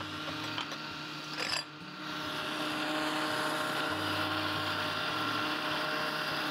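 Countertop blender motor running, puréeing cooked yam, orange juice, cocoa, sugar and plant milk into a smooth chocolate cream. Its level dips briefly about one and a half seconds in, then it runs on louder and steady.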